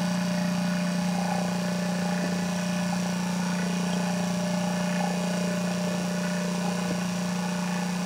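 Two-stage rotary vacuum pump running steadily with a low, even hum, shortly before it is switched off at the end of an evacuation of a mini-split line set.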